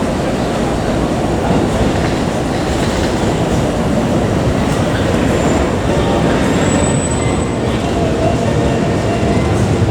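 Keikyu New 1000 series electric train running, heard from inside the passenger car: a steady rumble of wheels on rail, with a couple of brief faint high squeals about halfway through.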